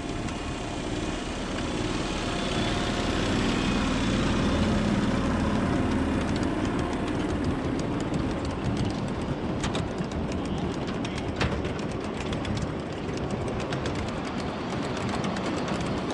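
A ride-on miniature-gauge train rolls past close by on ground-level track. It is loudest about four to six seconds in as the front of the train goes by. After that a string of freight cars passes with frequent clicks of the wheels over rail joints.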